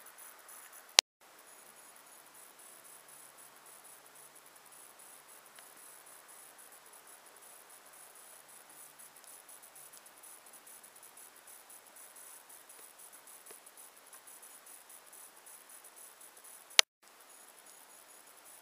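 Faint steady hiss with a thin, high, constant whine, broken twice by a sharp click, about a second in and near the end, each followed by a split second of dead silence, as at a cut between recorded clips.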